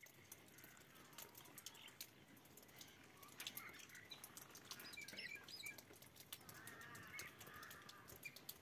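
Faint small birds chirping, with a short warbling call near the end, over scattered faint clicks and crackle.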